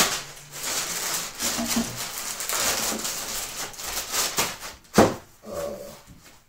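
Plastic packaging rustling and crinkling while a pair of tactical knee pads is unwrapped and handled, with a sharp knock about five seconds in.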